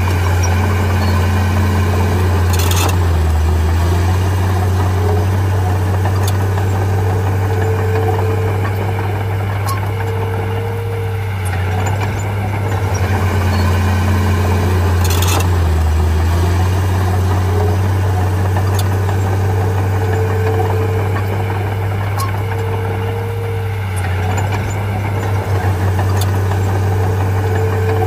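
Komatsu mini bulldozer's diesel engine running steadily under work. Its pitch sags briefly twice, about three seconds in and again about fifteen seconds in, each time with a short sharp noise.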